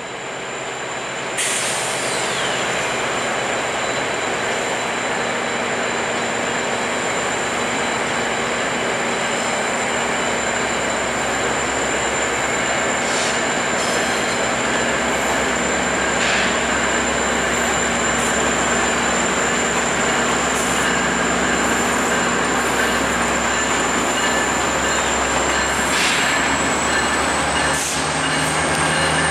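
GE P42 diesel locomotive and its passenger train pulling slowly out over station switches. A steady high-pitched wheel squeal carries through and rises slightly near the end, with occasional clanks over the rail joints and a low engine drone that builds from about ten seconds in.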